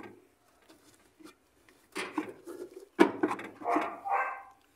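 Metal parts of a dryer's drive being handled as the motor is worked loose: a short rattle, a sharp knock about a second later, then a brief scraping rub.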